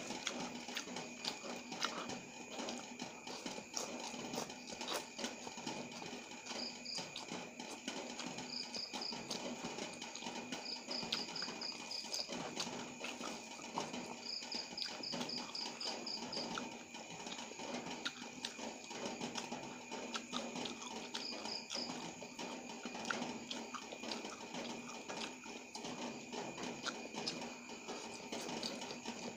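Close-up eating sounds of someone chewing noodles and fresh tamarind leaves, with many small wet mouth clicks over a steady background hum. Short high chirps come in several quick runs through the middle.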